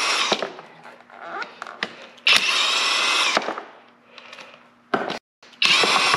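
Kobalt 24-volt cordless impact wrench hammering in short bursts as it spins out the bolts of an M35A2 air pack's end cover: one burst stops just after the start, another runs about a second from two seconds in, and a third starts near the end, with light metal clicks between.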